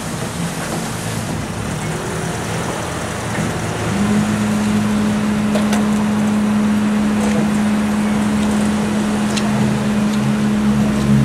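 Car engine running at a steady idle close by: a constant low hum that sets in about four seconds in and holds, with a few faint clicks over it.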